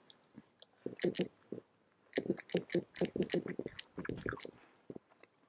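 A person chewing a bite of dried mango folded around ground mushrooms, close to the microphone: a run of short, irregular mouth clicks, densest from about two seconds in until near the end.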